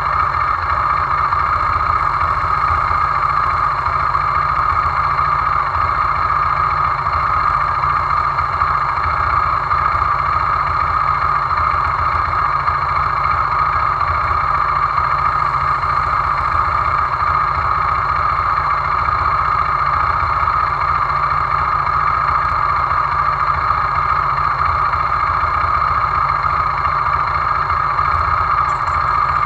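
Hyosung GD250N (Exiv 250N) motorcycle's single-cylinder engine idling steadily in neutral while the bike stands still.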